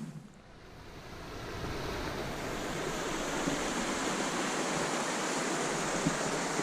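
River water running over rocks, a steady rushing that swells up over the first couple of seconds and then holds.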